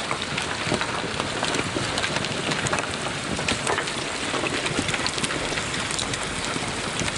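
Heavy rain, a dense steady hiss with many small sharp drop hits close to the microphone.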